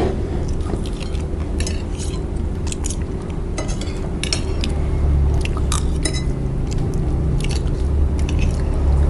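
Metal spoons and forks clinking and scraping on ceramic plates, a dozen or so irregular clicks, with chewing close to the microphones, over a steady low hum.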